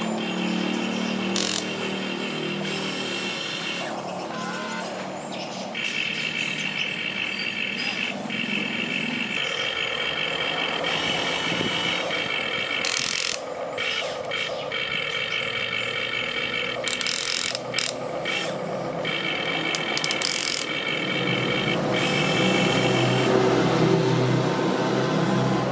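Electric motors of a remote-control excavator whining as it digs and swings its arm, starting and stopping in short spells as the controls are worked.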